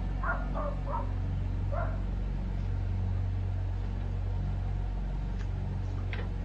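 A dog barks four short times in the first two seconds, then only a steady low hum remains.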